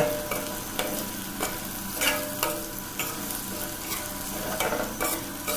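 Okra frying in hot ghee in a karahi, sizzling steadily, while a perforated steel skimmer stirs it with repeated scraping strokes against the pan.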